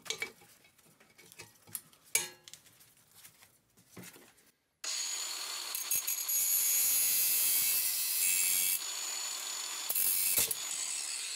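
Faint clicks and knocks of metal parts being handled, then, about five seconds in, an angle grinder cuts in abruptly and grinds through the metal of a refrigerator compressor: a loud, high-pitched grinding that eases briefly twice near the end.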